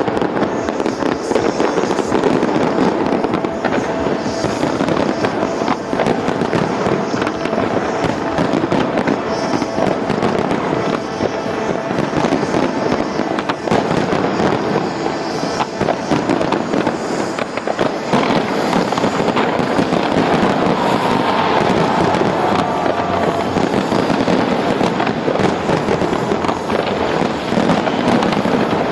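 A large fireworks display going off continuously: dense crackling and popping with bangs, with no pause, and music underneath.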